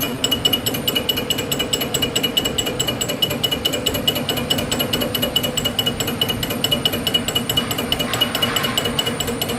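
CNC machine tool running: a steady high whine with rapid, even mechanical ticking.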